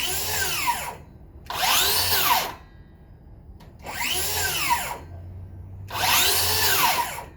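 DeWalt cordless circular saw run with no load in four short bursts of about a second each. Each time the motor spins up, then falls away quickly as the electric brake stops the blade.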